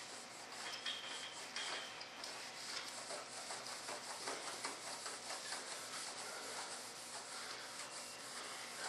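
A pad being rubbed back and forth over a mold surface, working in a coat of mold wax: a continuous scrubbing hiss that swells and fades with each stroke.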